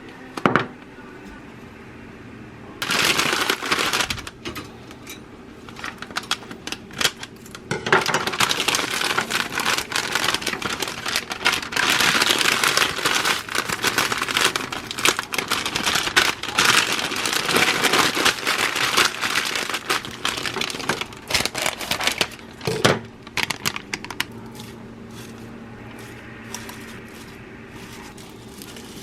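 Plastic packaging crinkling and rustling as it is handled: short bursts at first, then a long stretch of nearly continuous crinkling that dies away near the end.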